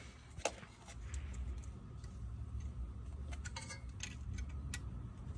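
A few scattered, irregular metallic clicks and ticks of a hand wrench working on a bolt, with a low steady hum underneath.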